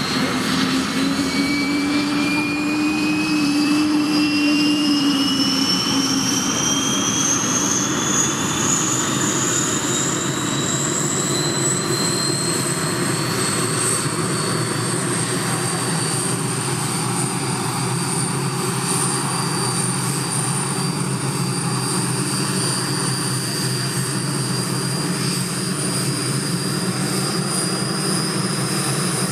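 Puma HC.1 helicopter's Turmo turboshaft engines spooling up during start-up: a whine rising steadily in pitch for about fourteen seconds, then holding steady as the engines settle.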